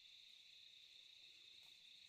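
Faint, steady high-pitched chorus of crickets.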